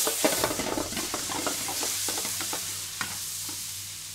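Prawns sizzling and crackling in hot oil in a frying pan just after a splash of ouzo hits it. The spitting is busiest in the first second or so and then eases.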